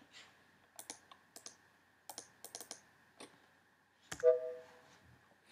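Computer keyboard and mouse clicking in scattered taps. About four seconds in, a sharp click followed by a short steady two-note tone, the Mac's alert beep as the delete keypress is rejected.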